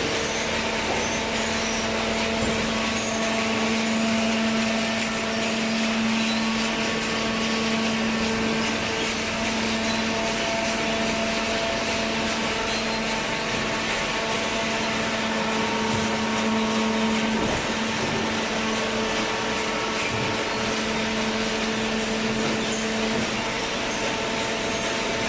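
Hydraulic baler running steadily: a constant machine hum with overtones over a broad mechanical noise. The lowest hum drops out about two seconds before the end.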